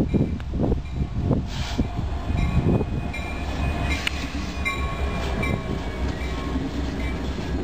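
Union Pacific SD70M diesel-electric locomotives passing close with a steady low engine rumble. A few sharp wheel clicks come over the rails between about three and six seconds in.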